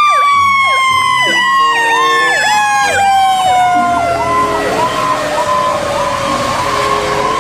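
Fire truck sirens passing: one long wailing tone that slides steadily down in pitch, with a faster electronic yelp repeating over it about twice a second.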